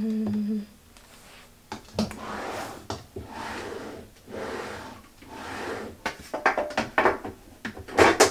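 A steady hum in the first half-second, then the scrape, rub and click of clear plastic acrylic organizers being handled and set down around a drawer. There are several light knocks and a sharper one near the end.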